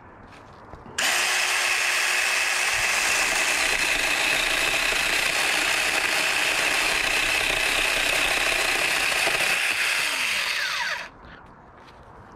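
Cordless 4-inch battery-powered mini chainsaw switched on about a second in and running steadily with a high whine while held against a small tree branch, then released about eleven seconds in and spinning down.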